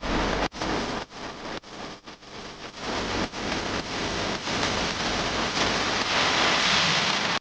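A hissing noise sweep in electronic music, chopped into short pulses at first, then swelling and brightening into a build-up that cuts off suddenly at the end.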